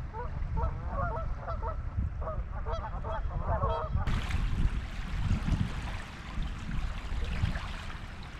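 A flock of geese honking again and again over the first half, over a gusty low rumble of wind on the microphone. About four seconds in the calls stop and the sound changes to small waves washing on a pebbly shore.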